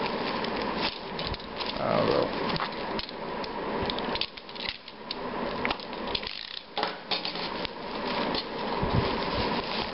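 Clear plastic packaging wrap crinkling and crackling in irregular bursts as it is handled and cut open with a utility knife.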